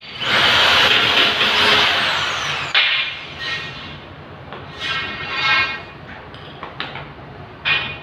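Corded electric drill with a masonry bit boring into a concrete wall, running loudly for nearly three seconds and then stopping abruptly. A few shorter, quieter bursts follow.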